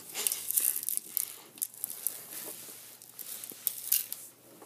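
Thin plastic candy-kit tray handled by hand, giving irregular crinkling and quick light clicks.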